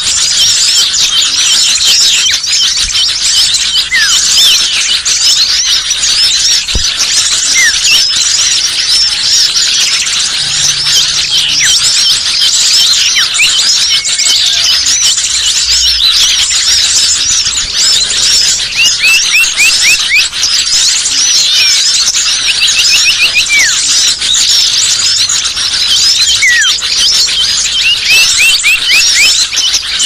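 Dense, busy chorus of many small songbirds chirping and chattering at once: a bird-lure call recording used to draw small birds down. High overlapping chirps run throughout, with scattered falling whistles and a quick run of falling notes about two-thirds of the way through.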